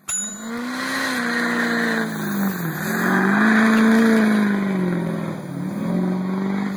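A vehicle engine running hard, its pitch dipping sharply and climbing back twice, as when shifting through gears.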